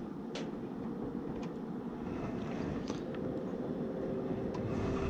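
Heating and cooling equipment running after its power has been switched back on: a steady mechanical noise with a faint hum whose pitch shifts partway through, and a few light clicks.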